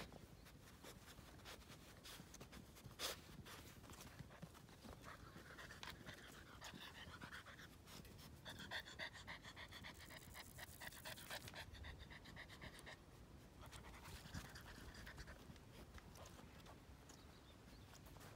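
Labrador Retriever puppy panting quickly in several faint bouts, the strongest near the middle, with a few light clicks between them.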